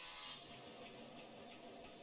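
Near silence: a faint hiss, with the tail of soft background music dying away at the start.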